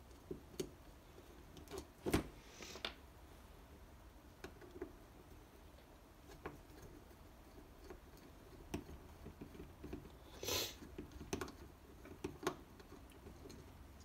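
Scattered small metallic clicks and taps of a screwdriver and screws as the housing of a neutral safety switch is unscrewed by hand, with a sharper click about 2 s in and a short scrape about 10 s in.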